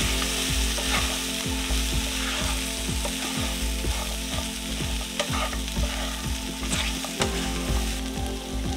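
Potato, cauliflower and peas frying in a spiced oil in a non-stick pan with a steady sizzle, stirred with a wooden spatula that scrapes and knocks against the pan now and then as the ground spices are mixed in.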